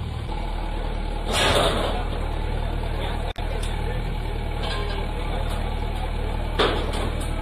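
Diesel engine of a backhoe loader running steadily under demolition work. A loud crash comes about a second and a half in, and a sharp knock near the end, as the machine breaks into the building.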